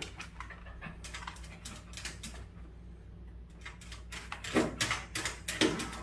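Dachshund scratching and pawing at the air conditioner and floor cushion, claws scraping and knocking in two spells of quick strokes, one about a second in and another near the end.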